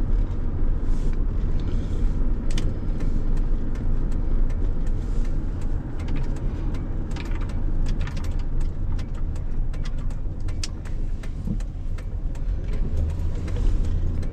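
Steady low rumble of a truck on the move, heard inside the cab, with scattered light ticks and taps.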